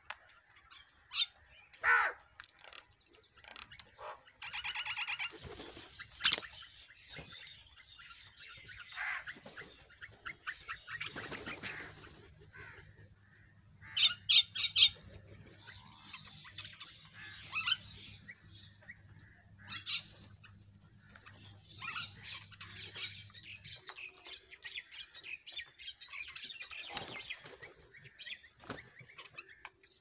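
A flock of house crows calling in scattered caws, with wings flapping as birds hop, take off and land. The loudest calls come in a quick cluster about fourteen seconds in.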